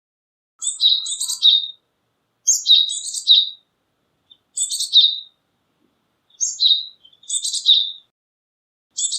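Japanese tit singing: short, high-pitched phrases of quickly repeated notes, given about every two seconds. Four phrases come, and a fifth begins at the very end.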